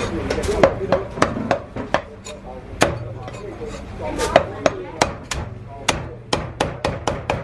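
Chinese cleaver chopping marinated goose on a thick round wooden chopping block: a quick, uneven run of sharp chops, about three a second, some louder than others.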